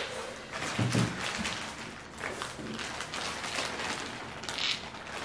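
Clear plastic bags of seafood boil rustling and crinkling as they are opened and handled, with a sharper crinkle near the end.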